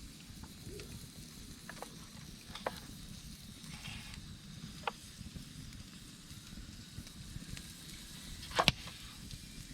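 Wood campfire crackling: a steady low rumble of the burning fire with a few sharp pops, the loudest a quick double pop near the end.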